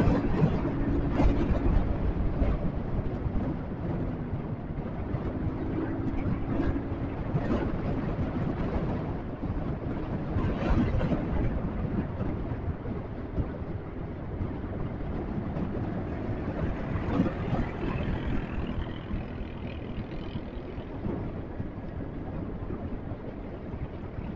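Motorcycle under way at road speed: wind rushing over the helmet microphone, with the engine and road noise running underneath. A pitched engine note comes through briefly near the start and again about six seconds in.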